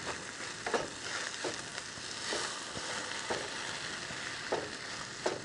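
Fried rice sizzling in a pot on a camp stove, with a wooden spoon scraping and stirring through it in short strokes about once a second.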